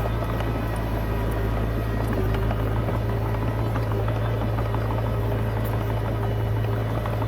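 Komatsu D20P bulldozer's diesel engine running steadily under load with a deep, even drone, with faint clatter from the tracks and blade.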